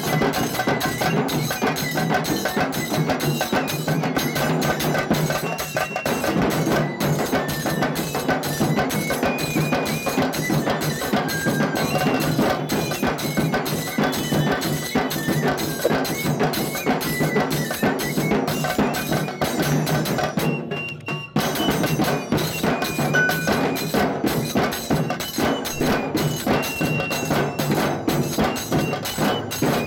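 Bamboo flute (bansi) playing a fast folk melody into a microphone, over rapid tasha drum strokes and dhol beats. The music breaks off briefly about two-thirds of the way through, then carries on.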